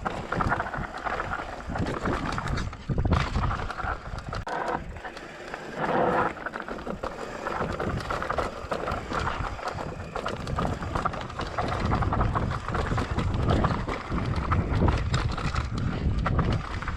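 Giant Glory downhill mountain bike rolling fast down a rough, steep trail: tyres crunching over dirt and rock, with a constant irregular clatter of knocks from the bike over the bumps.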